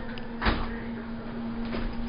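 Oven door of an electric range pulled open, with one dull clunk about half a second in. A steady low hum runs underneath.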